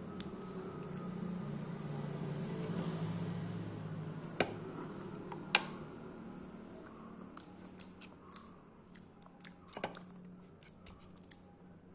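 Close-up eating of a mussel (kallummakkaya) snack: wet squishing and chewing, with two sharp clicks of mussel shell near the middle, then a run of small ticks and clicks as the shell is picked apart with the fingers.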